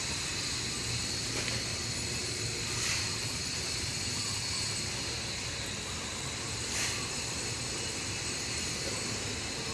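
Steady background hiss with a faint, constant high tone and a couple of soft, faint rustles.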